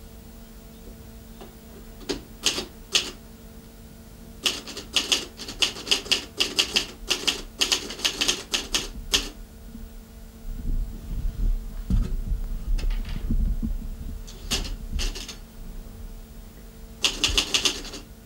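Typewriter being typed on in quick bursts of key strikes, with pauses between them. In one longer pause there is a low rumble, and a steady low electrical hum runs underneath.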